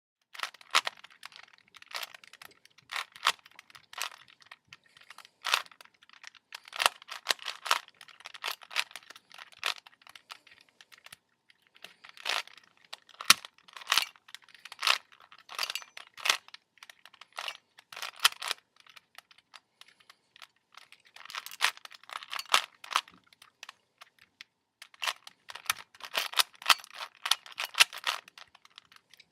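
Plastic Rubik's Cube layers being turned by hand: rapid clicking and clacking in runs of quick twists, with short pauses between the runs.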